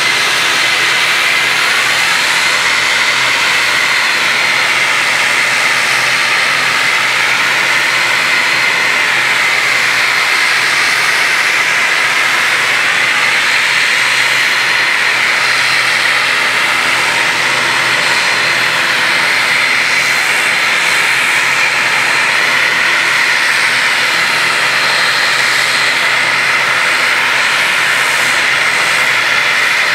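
ATR 72-500's twin Pratt & Whitney Canada PW127-series turboprop engines running at idle, both propellers turning, with the aircraft standing still. A loud, steady whine with a slow, wavering rise and fall every few seconds.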